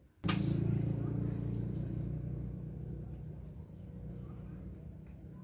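A low hum that starts suddenly and slowly fades, with crickets chirping faintly in the first half.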